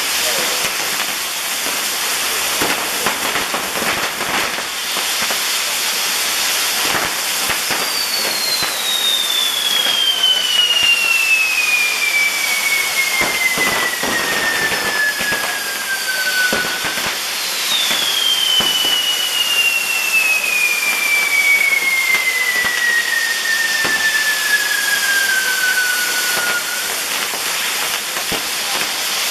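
Maltese ground fireworks (nar tal-art) burning: a continuous hissing rush with scattered crackles. Two long whistles slide steadily down in pitch, each over about nine seconds, the second starting just as the first ends.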